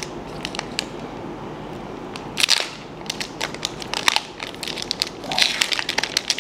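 Foil wrapper of a Pokémon trading-card booster pack crinkling and crackling as it is torn open by hand, with a louder burst about two and a half seconds in.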